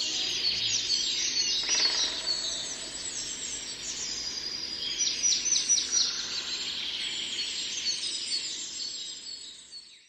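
Songbirds chirping and trilling together, many quick falling chirps, with a denser flurry about five seconds in; the sound fades out just before the end.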